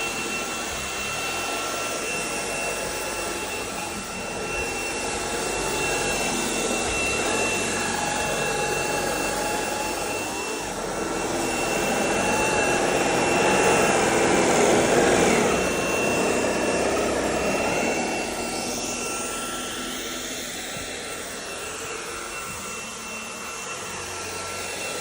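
Shark WandVac cordless stick vacuum running: a steady motor whine over a rush of air, with the airflow pitch wavering as the vacuum is worked over the floor. It is loudest a little past the middle and eases off somewhat later on.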